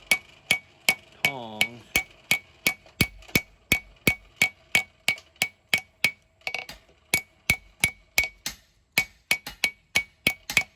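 Hand hammer striking hot steel on an anvil while forging a knife blade: a steady rhythm of about two to three blows a second, each with a bright ringing note from the anvil. The blows pause briefly near the end, then resume.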